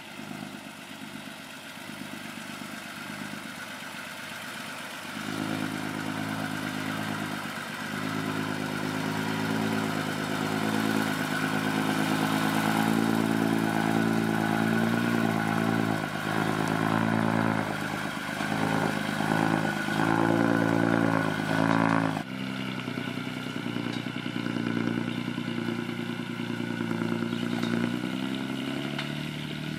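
Diesel engine of a loaded sugarcane truck pulling away across a field, getting louder about five seconds in as it picks up revs, with the revs dipping and rising several times. About two-thirds of the way in the sound cuts abruptly to a quieter, steadier engine note.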